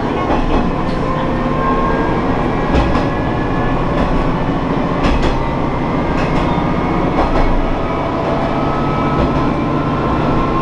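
Shigaraki Kohgen Railway diesel railcar running along the track: a steady rumble of wheels on rail with a sharp rail-joint click every couple of seconds and faint thin whining tones coming and going.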